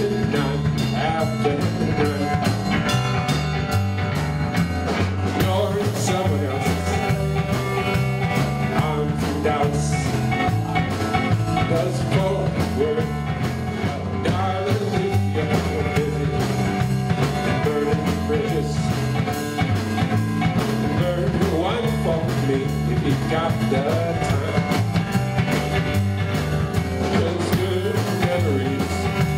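Live band playing: an upright double bass and a drum kit with cymbals keep a steady beat under the tune.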